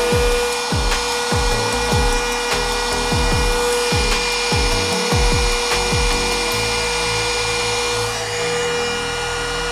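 A small electric motor running steadily with a high whine and a rushing noise. Under it runs a deep bass beat that drops in pitch on each stroke, about one and a half strokes a second, which stops about six seconds in.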